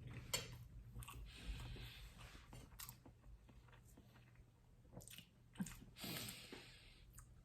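Quiet chewing of a bite of cassava cake, with a few small mouth clicks.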